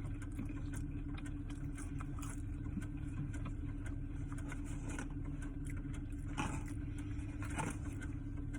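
Idling car engine and cabin hum heard from inside the car, a steady drone, with a few light rustles and clicks scattered through it.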